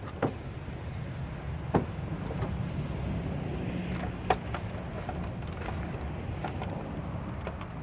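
A few sharp, scattered clicks and clinks of hand tools and metal parts during the teardown of an electric scooter, over a steady low hum.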